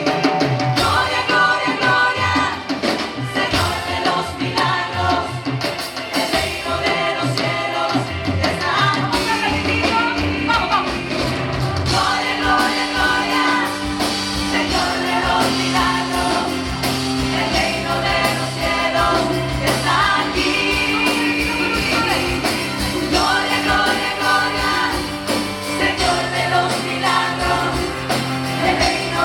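Live worship music: singing over band accompaniment with held bass notes, playing continuously.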